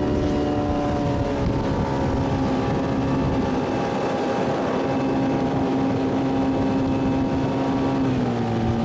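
A motor engine running at a steady speed, a droning hum that dips slightly in pitch about a second in and again near the end.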